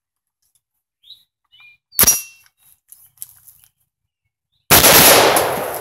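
Single shot from a .223 Wylde AR-15 rifle, very loud and dying away slowly over more than a second, fired with the weights removed from its carbine buffer to cure short-stroking. About two seconds earlier there is a sharp metallic clack from the rifle's action, and a few faint bird chirps.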